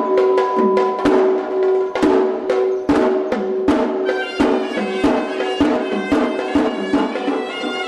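Sri Lankan hevisi temple drumming: drums struck in a steady rhythm of sharp strokes, with a horanewa shawm holding one note and then playing a reedy melody from about four seconds in.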